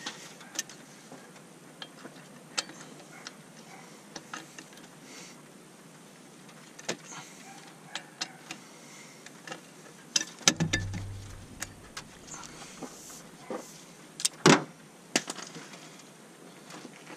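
Scattered metallic clicks and clinks of a socket and extension working a head bolt loose from a 6.7 Cummins cylinder head. There is a cluster of louder knocks with a brief dull thump about ten and a half seconds in, and a sharp clank about fourteen and a half seconds in.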